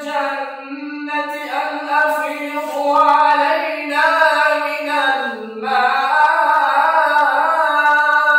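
A solo male voice reciting the Quran in melodic tajweed chant, drawing out the words in long held, ornamented notes. The pitch dips lower about five seconds in, then rises again.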